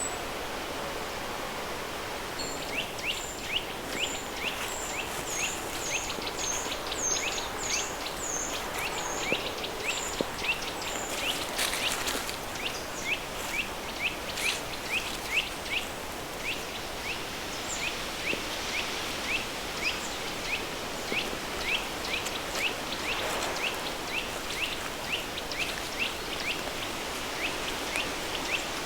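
Steady rush of a river stream under a layer of pink noise. Over it a bird repeats short high chirps about twice a second, starting a couple of seconds in, with a second series of higher notes through the first third.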